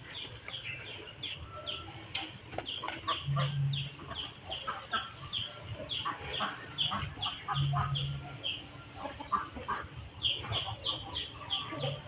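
Farmyard chickens clucking and chirping, a rapid run of short high calls about three a second, with a short low hum pulsing about every four seconds.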